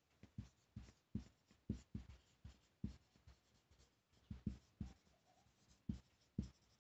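Marker pen writing by hand: a faint run of short, irregular strokes and taps of the tip on the writing surface.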